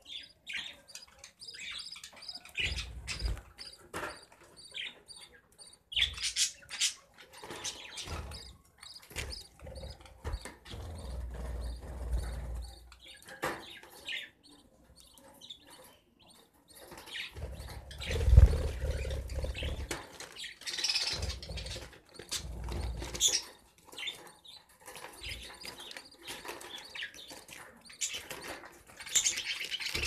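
Budgerigars in a nest box chirping in many short, high calls while a parent feeds the chicks. Low thumps and rumbles of movement close to the microphone break in, the loudest about eighteen seconds in.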